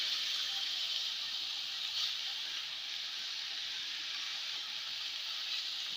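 Chigala greens, onion and matki dal frying in an aluminium kadhai, giving a steady sizzling hiss as they are stirred with a wooden spatula. The hiss eases slightly after the first second.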